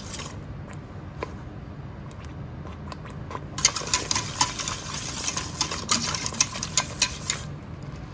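Wire whisk scraping and clicking against the sides of a stainless steel pot as thick barbecue sauce is stirred while it cooks. There are a few light clicks at first, then rapid, continuous whisking from about halfway through until shortly before the end.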